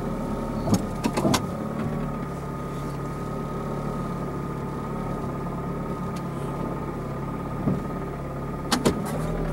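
Car engine running steadily, heard from inside the cabin, with a few sharp clicks or knocks about a second in and again near the end.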